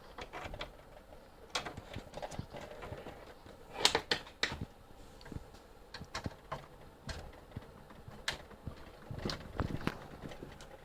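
Irregular clicks and light knocks from handling a test cable and plugging it into an oscilloscope input, the sharpest about four seconds in and again near the end.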